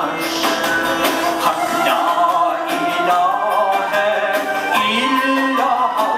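A man singing live into a microphone over instrumental accompaniment, holding long notes that waver in pitch.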